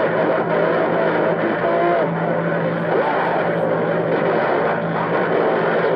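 CB radio receiver putting out a garbled jumble of overlapping transmissions, static and squealing heterodyne tones over a steady hum, with no words that can be made out: a badly interfered, "rough and tough" signal.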